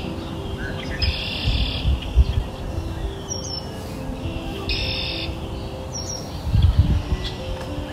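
Birdsong: two rapid, high trills about a second in and about five seconds in, with short high chirps between them. Under them run soft, sustained background music notes.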